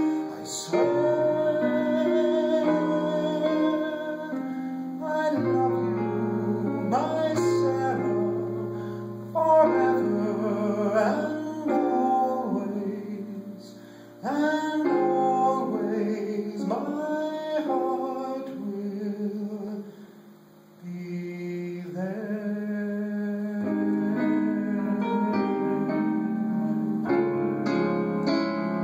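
Digital piano playing sustained chords in a slow ballad, with a man singing over it. The music eases off briefly about halfway through and again about two-thirds of the way in.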